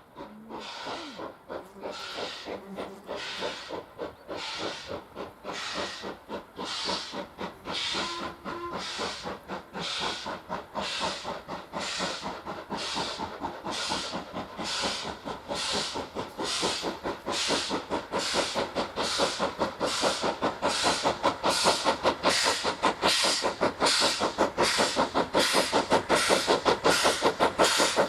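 Ex-LMS Ivatt 2MT 2-6-2T tank engine No.41312 working hard uphill, its two-cylinder exhaust beating in steady chuffs. The beats quicken from under two a second to about three a second and grow steadily louder.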